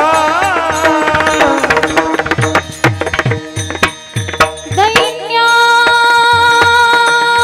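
Marathi devotional singing in raga Bhairavi with mridang accompaniment. The voice finishes a phrase, then the drum plays a quick run of strokes whose deep bass strokes slide down in pitch. About five seconds in, a long steady held note comes in over the drumming.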